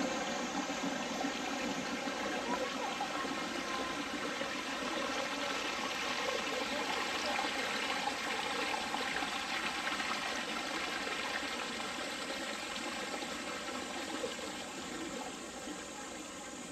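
Steady rush of running water, fading a little toward the end.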